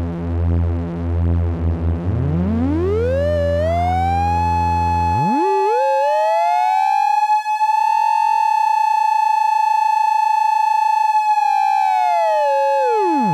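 Two Eurorack function generators, a Make Noise Maths and a Behringer Abacus, running in cycle mode as audio oscillators. They drone together at a low pitch with a slow beating between them. One glides up to a high tone over about two seconds, then the other glides up after it, and the two hold close together before one sweeps back down near the end.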